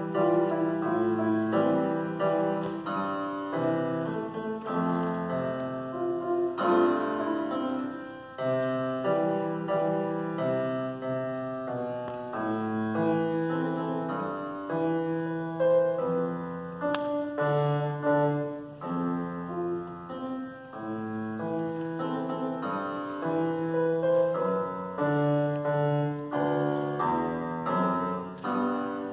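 Grand piano played live: a continuous passage of notes, with a melody over lower bass notes.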